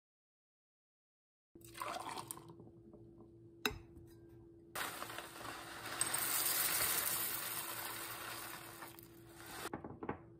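Dry cereal flakes poured from a plastic bag into a ceramic mug: a steady rattling pour of about five seconds, loudest midway, after a rustle of the bag and a sharp click. Milk starts pouring from a carton near the end.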